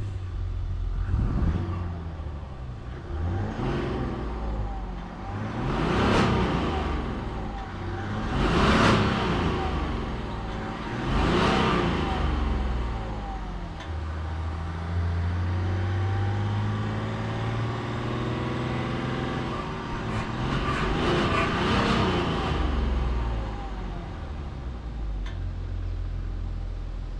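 2023 Land Rover Discovery D300's 3.0-litre turbo-diesel inline-six being driven and accelerating. Its sound swells and fades about five times, with a longer steady climb in engine pitch around the middle.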